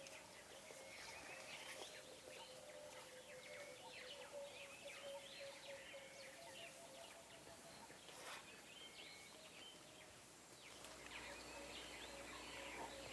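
Faint bush ambience full of small birds calling: many short chirps and whistles overlapping, with a faint steady tone underneath for the first half.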